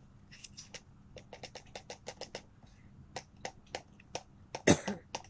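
Plastic clicks and taps from handling and adjusting a small smartphone tripod and mount fitted with a microphone and light, with a quick run of clicks and one louder knock near the end.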